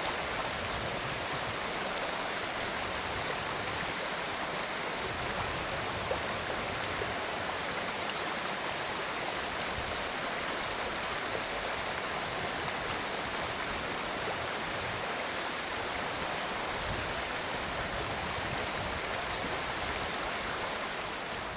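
Stream water flowing steadily, an even rushing noise with no break.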